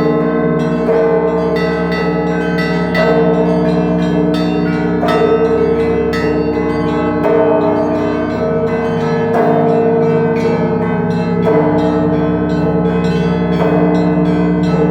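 Russian Orthodox bell ringing (zvon) on a monastery belfry: a set of church bells played by one ringer, the small bells struck in quick rhythmic patterns over the long ringing tones of the larger bells, with the pattern shifting about every two seconds.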